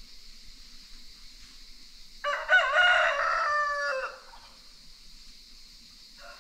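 A rooster crows once, a loud call of about two seconds that falls away at the end. A second, quieter crow begins near the end, over a steady high hiss.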